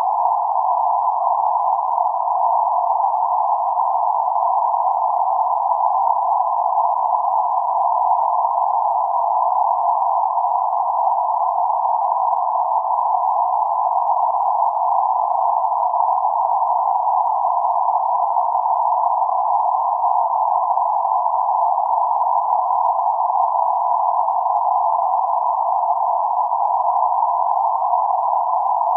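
Steady band-limited noise centred around 848 Hz, a narrow hiss-like hum confined to roughly 500 Hz–1.5 kHz with nothing above or below it, unchanging in level. It is electronically generated ambient noise made for sleep and focus.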